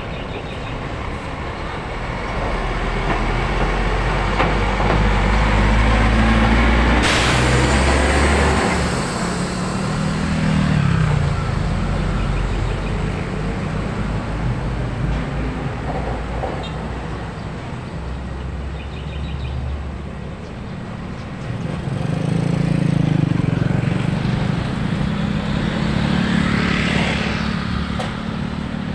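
Road traffic passing close by: a heavy diesel truck's engine goes past loud, with a sudden air-brake hiss about seven seconds in that fades over a couple of seconds. A second loud pass of cars and motorcycles follows in the second half.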